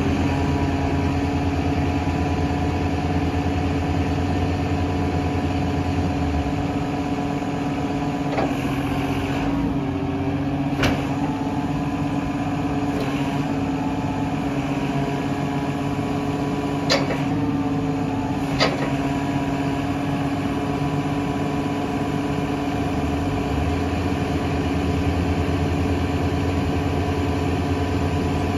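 Skiploader truck's engine running with its hydraulics raising the lifting arms: a steady hum with a low rumble that drops away about six seconds in and comes back near the end. A few sharp clicks or knocks come in the middle of the lift.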